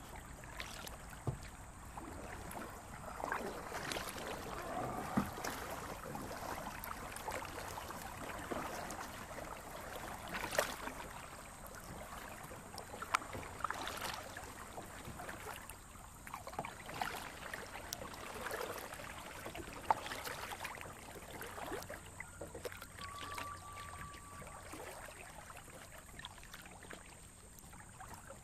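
Kayak paddle strokes splashing in a flowing creek, with sharp splashes every few seconds over the steady rush and trickle of the water.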